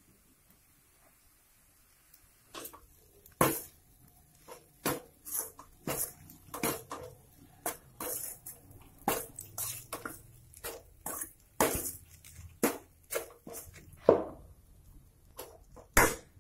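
A spoon scraping and knocking against a steel kadhai as poha is stirred and tossed, in irregular strokes about two a second, starting about three seconds in.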